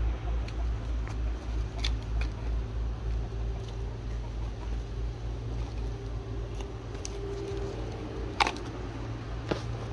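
Whole breadfruits being set onto a wood fire, giving a few sharp knocks, the loudest about eight seconds in. A steady low rumble runs underneath.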